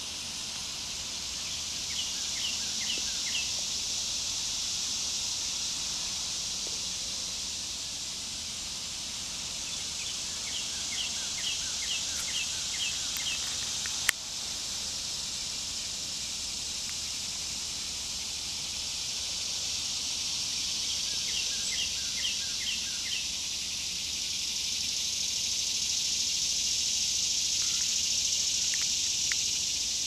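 A high-pitched insect chorus drones steadily and swells near the end. Over it a bird gives a quick run of repeated chirps three times, and there is one sharp click about halfway.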